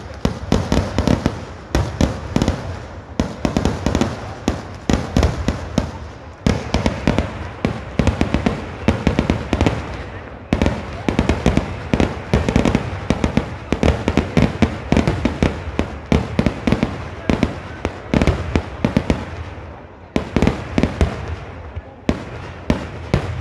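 Kerala temple-festival fireworks (vedikkettu): a dense, rapid barrage of loud firecracker bangs, many each second. The barrage thins briefly near the end before a few more sharp bangs.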